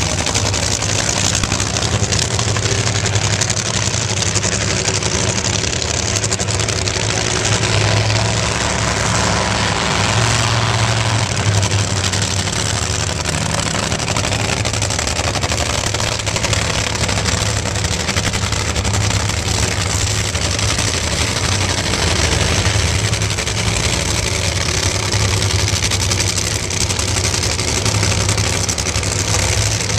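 Two nitro-burning Funny Cars' supercharged V8 engines idling steadily while the cars back up and stage after their burnouts.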